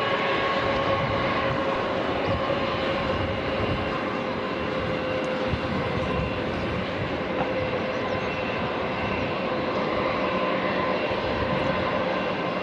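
Twin jet engines of an Airbus A320-family airliner at low taxi power as it turns and lines up on the runway: a steady rushing hum with a whine held on a few fixed pitches.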